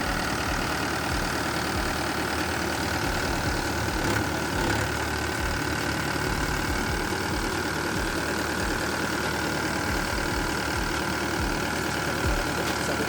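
Yanmar diesel engine of a Doosan S55-V mini excavator running steadily at an even speed, with no revving.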